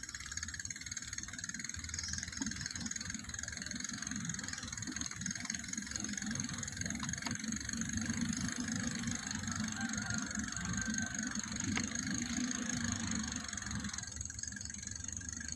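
Bicycle riding along a concrete road, heard from a phone mounted on the handlebars: a steady rumble of tyres and wind on the microphone, with faint knocks and rattles.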